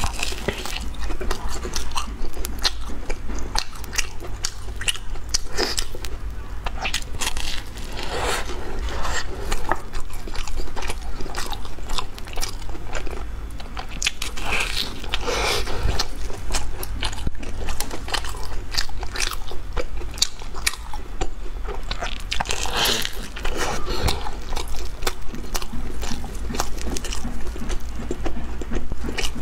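Close-miked biting and chewing of a crusty, chocolate-filled mochi bread: the crisp crust crunches and crackles in dense small strokes, with wet chewing between bites. A steady low hum runs underneath.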